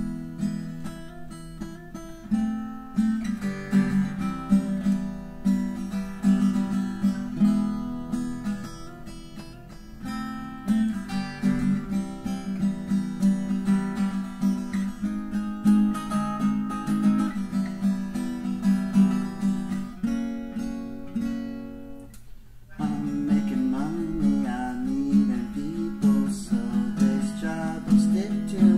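Guitar playing, chords picked and strummed with ringing sustained notes. The playing nearly drops out about 22 seconds in, then comes back louder.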